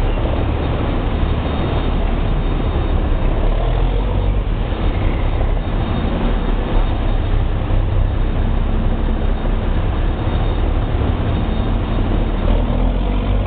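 Steady, loud low rumble of heavy diesel machinery running, with a noisy hiss over it and no distinct events.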